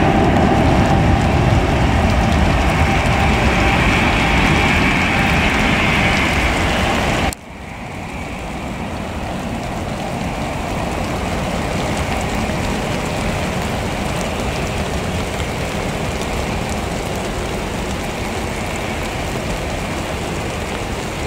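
Airbus A321neo jet engines at takeoff power as the airliner climbs away, a steady rushing noise with a high whine. About seven seconds in the sound cuts off abruptly, then swells back up gradually to a steady rush.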